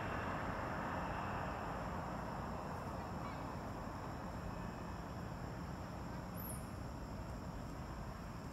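Steady outdoor background noise, an even haze slowly fading, with one brief faint high chirp about six and a half seconds in.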